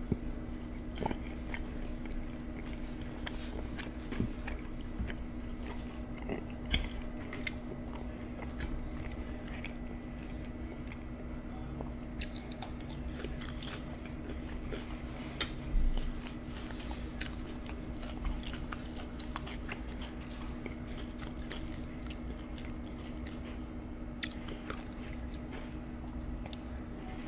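Close-miked chewing and wet mouth sounds of a person eating deep dish supreme pizza, with many small scattered clicks over a steady low hum.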